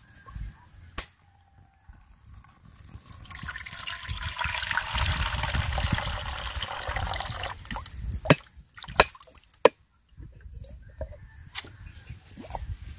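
Coconut water splashing out of a cracked mature coconut into a wooden bowl for about four seconds. Then three sharp knocks, the loudest sounds here, of a knife blade striking the coconut shell to split it further, with a single knock about a second in and fainter ones near the end.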